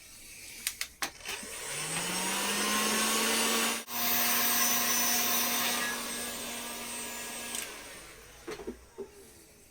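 Heat gun blowing hot air to shrink heat-shrink sleeving, its fan motor spinning up with a rising hum, running steadily for about six seconds with a momentary cut-out partway through, then switched off.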